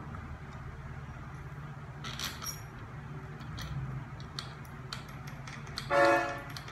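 Small metal parts clinking and tapping as they are handled by hand on a Mercedes 722.6 transmission valve body, with a cluster of clinks about two seconds in. A short hum near the end is the loudest sound.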